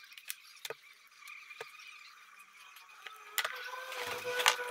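Scattered light clicks and taps of small metal parts being handled as a Solex carburettor is put back together, growing busier near the end, with a faint steady high tone joining in about three seconds in.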